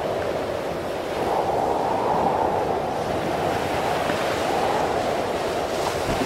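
Surf breaking and washing up a sandy beach, a steady rushing noise with wind on the microphone. It swells slightly about a second in.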